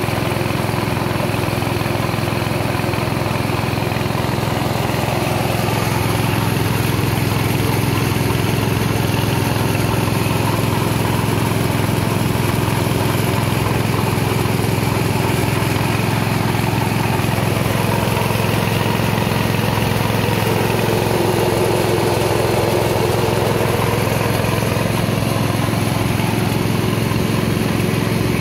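Rice milling machine running steadily under load, driven by a small engine, while it mills paddy into white rice. A constant drone with no change in speed.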